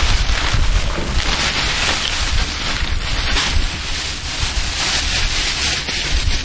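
Wind buffeting the microphone: a loud, uneven low rumble with a rushing hiss.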